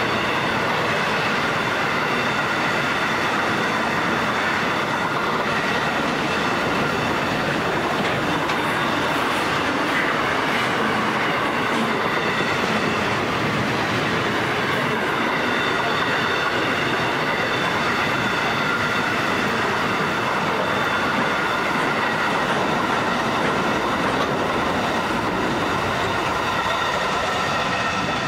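Long freight train's container wagons rolling past on the rails: a steady rumble and clatter of wheels, with several steady high-pitched tones above it.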